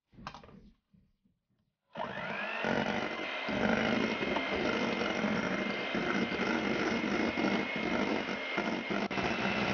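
Electric hand mixer switching on about two seconds in, its motor whine rising quickly to a steady pitch as the beaters whip stiff egg-white meringue in a metal bowl. Near the end the whine steps up slightly in pitch.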